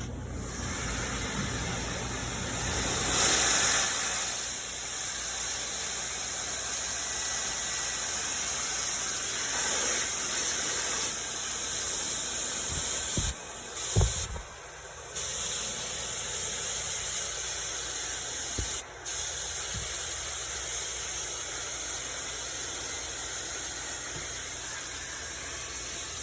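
Steady hiss of pressurized R141b flushing solvent spraying through an air-conditioner evaporator coil to clear a blockage, loudest a few seconds in, with a brief knock about halfway through.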